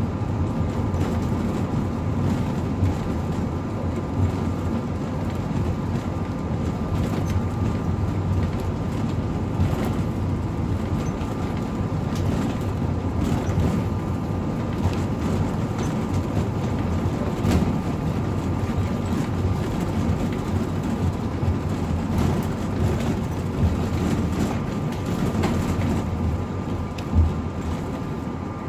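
Cabin noise of a Ford shuttle bus on the move: steady engine and road rumble, with a faint steady high tone and a few brief knocks from bumps.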